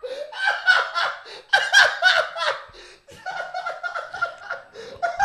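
Men laughing in repeated bursts, with a short lull about three seconds in.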